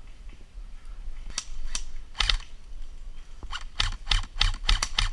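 Airsoft guns firing sharp single shots: a few spaced shots, then a faster, uneven string of shots near the end.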